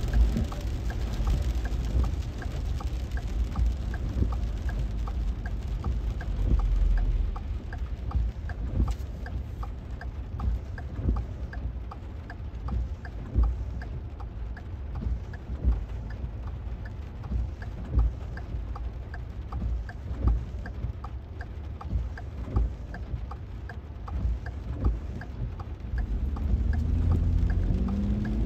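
Heavy rain drumming on a vehicle's roof and windshield, heard from inside the cab, with a light even ticking about twice a second and scattered dull thumps. Near the end an engine speeds up as the vehicle pulls away.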